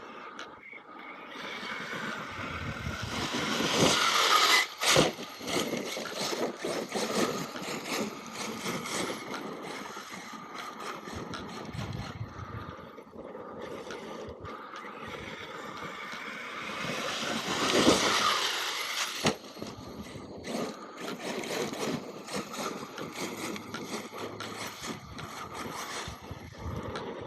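Brushless electric RC monster truck (Arrma Kraton EXB) driving over dirt and gravel, with tyres scrabbling and the chassis rattling. It gets loudest twice, about four and about eighteen seconds in, as it speeds up and passes close.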